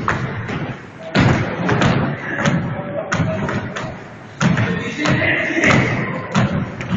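Feet landing from repeated jumps on a wooden sports-hall floor: a string of thuds, one or two a second, ringing in the large hall, with voices in the background.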